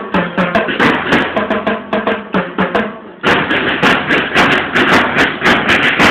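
Percussion-heavy music: a steady beat of drums and sharp clicking strikes. About three seconds in it drops briefly, then comes back with denser, sharper drum hits.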